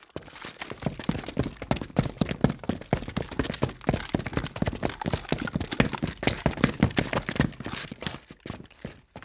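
Rapid, irregular clicking and knocking, several strikes a second, that stops abruptly near the end.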